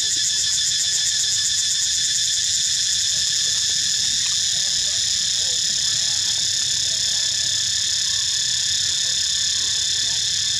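Steady, high-pitched chorus of insects: a dense buzzing drone in several layers, pulsing finely and holding without a break.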